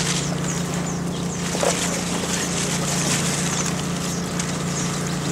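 Steady engine drone, with water splashing and sloshing around helmeted divers at the surface.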